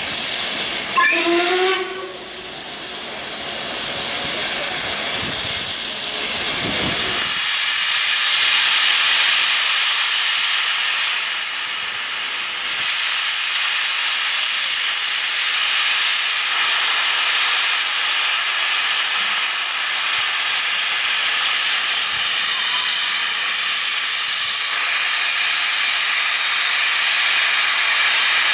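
Steam locomotive LMS Black Five 44932 letting off steam in a steady, loud hiss. A brief whistle sounds about a second in.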